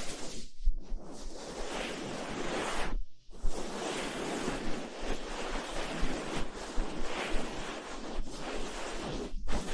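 Close-miked ASMR rubbing and rustling, a continuous noisy swishing like hair being scrubbed or material rubbed against the microphone, broken by brief pauses about half a second in, about three seconds in and near the end.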